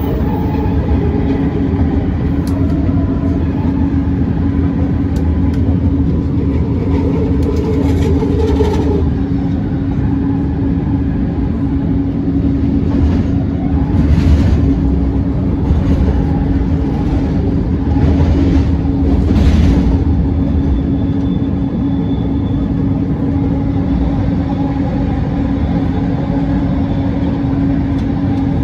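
Bombardier Innovia ART 200 light-metro train running: a steady hum over rumbling wheel-on-rail noise. A second, higher hum drops out about a third of the way through, and the rumble swells twice in the middle.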